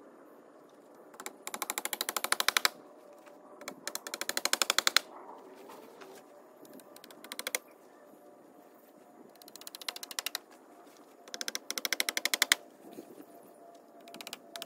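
Repeated bursts of rapid, rattling clicks, each about a second long and growing louder toward its end, coming every few seconds, about five times.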